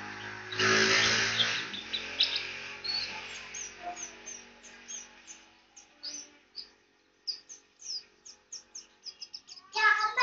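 A pleci (white-eye) giving many short, high chirps, then breaking into a loud, rapid song near the end. A passing vehicle's engine noise fades out in the first two seconds.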